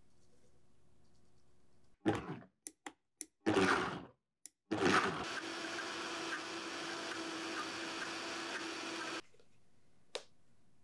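Countertop blender blending a rice-and-milk bread batter: a few short bursts and clicks, then the motor runs steadily for about four and a half seconds with a steady hum under the whir and cuts off suddenly. A single short knock follows near the end.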